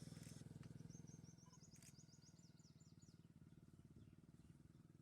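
Faint outdoor background: a low pulsing drone that drops in level about a second and a half in. About a second in comes a quick run of a dozen or so high, thin chirps from a small bird.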